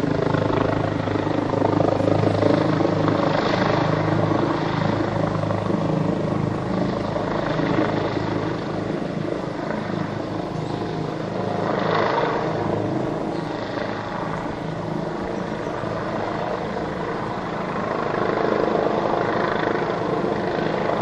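Police helicopter hovering low overhead: a steady drone of rotor and engine that swells a little about halfway through and again near the end.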